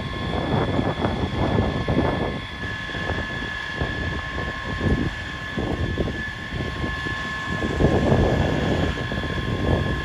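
A vehicle engine running with a constant high whine, under an uneven, gusty low rumble of wind on the microphone.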